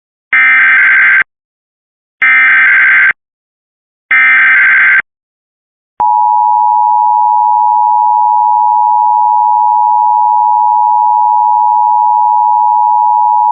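Emergency Alert System test tones: three one-second bursts of SAME header data, the fast-shifting digital tones that encode the alert, sent about a second apart. About six seconds in, the steady two-tone EAS attention signal (853 and 960 Hz together) starts and holds.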